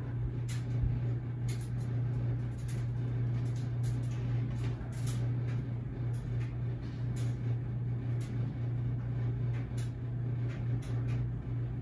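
A steady low hum with faint, irregular ticks and rustles over it.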